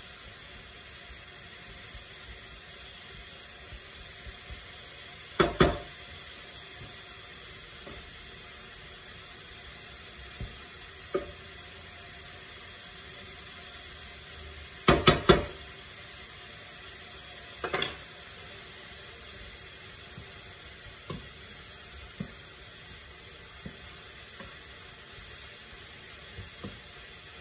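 Grated zucchini and carrots sizzling steadily in frying pans while a wooden spatula stirs them, knocking against the pan now and then: two sharp knocks about five seconds in, three in quick succession around the middle, one more shortly after, and lighter taps in between.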